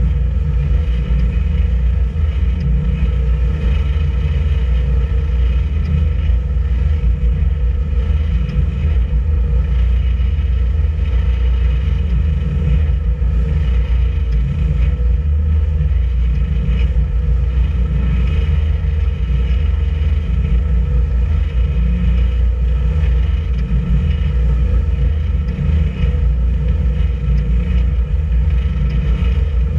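A boat's engine running steadily under way, a loud, constant low rumble with a steady hum above it.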